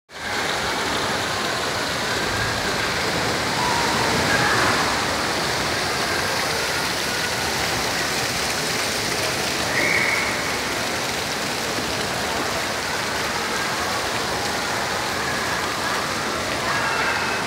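Water spraying from small play fountains and splashing into a shallow children's splash pool: a steady rushing, pattering hiss.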